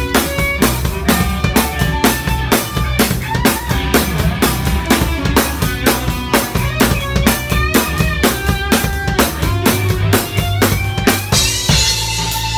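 Live rock band heard from right beside the drum kit: close, loud drums keep a steady beat with kick, snare and cymbals over electric keyboard and bass guitar. A cymbal crash about a second before the end, with a held note after it.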